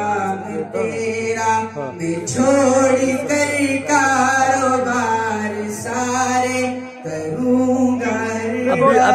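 A young man's voice singing devotional Urdu verse unaccompanied into a microphone, in long held, ornamented notes, breaking off briefly about seven seconds in.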